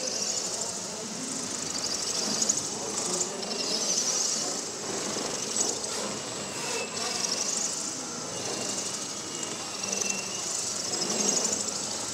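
Scratch-built lightweight 700-size electric RC helicopter flying, its motors giving a high whine that slides up and down in pitch as it manoeuvres; the main rotor turns at an unusually low speed.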